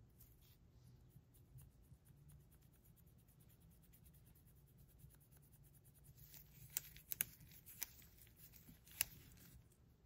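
Faint scratching and rubbing from hand work on small plastic toy models, with a handful of sharp light clicks in the second half.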